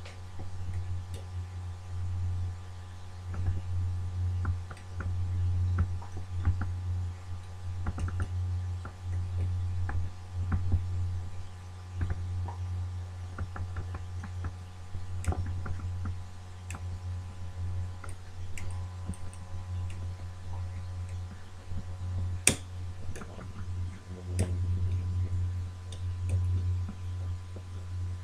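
Lock pick working the levers of an old ERA British Standard sash mortise lock: scattered small clicks and scrapes, with one sharper click about 22 seconds in, over a steady low hum.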